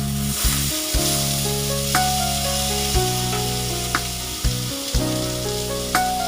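Food sizzling and frying in a pan, under background music with held notes and a beat about once a second.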